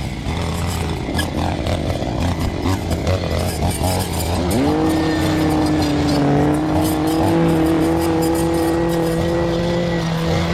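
Engine of land-clearing equipment running at low speed, then revving up about halfway through and holding a steady high-speed whine.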